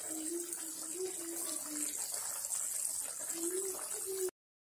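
Watery jackfruit curry boiling in a steel kadai, a steady bubbling hiss. It cuts off abruptly about four seconds in.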